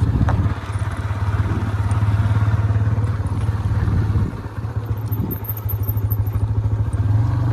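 Motorcycle running along at steady riding speed, heard from the pillion seat as a low, even engine rumble. It eases off for a moment a little past halfway, then picks up again.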